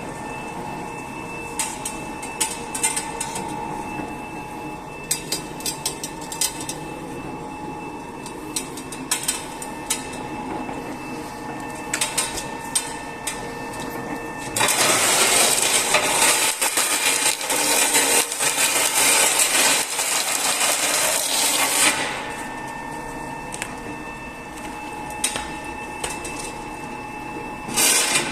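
Tyre-cutting machine running with a steady hum and scattered clicks and knocks. From about 15 to 22 seconds in, a much louder harsh, hissing noise takes over, typical of the blade working through the tyre, then the hum returns.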